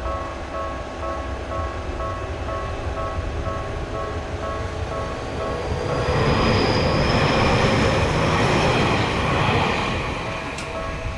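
Japanese level-crossing warning bell ringing in a steady repeating pattern. About six seconds in, a train passes with a loud rush of wheel and rail noise and a high squeal, fading again near the end.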